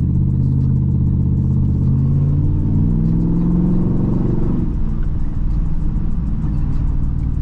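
Truck engine running under way with road rumble. The engine note climbs steadily as the truck accelerates, then drops about four and a half seconds in.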